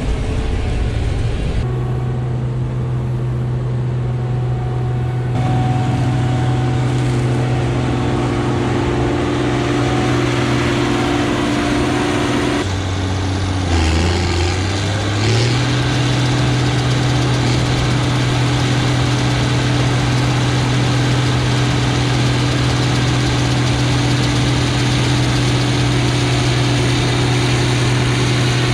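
Combine harvester running steadily while harvesting corn, a constant engine-and-machinery drone heard from inside the cab. About 13 s in, the drone dips in pitch for a couple of seconds, then comes back up to its steady note.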